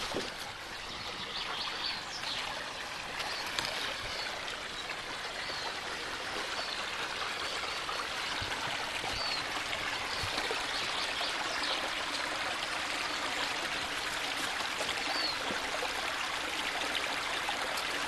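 Small forest stream of snowmelt running over moss and snow, a steady rushing and trickling that grows a little louder over the first several seconds.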